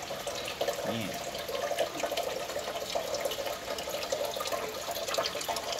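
Small decorative water fountain with a red hand-pump spout, water trickling and splashing steadily into its basin.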